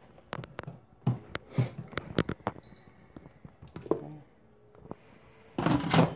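A series of sharp clicks and light knocks from kitchen items being handled, several in quick succession in the first few seconds and a few more later, then a louder scraping, rustling noise near the end.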